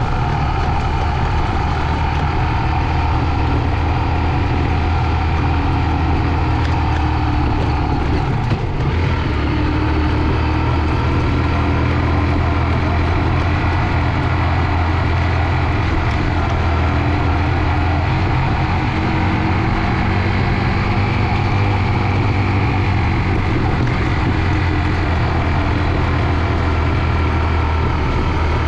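Honda CG 125 motorcycle's small single-cylinder engine running at a steady, even pace while riding, a constant low drone.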